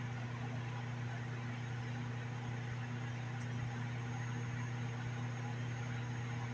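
Microwave oven running, a steady low hum over an even hiss, as it heats a cheese-topped baked potato.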